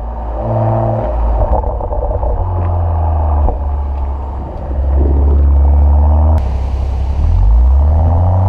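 BMW M135i's turbocharged straight-six running and revving through an M Performance exhaust, the pitch shifting up and down, with a sharp crack about six seconds in and the revs climbing again near the end.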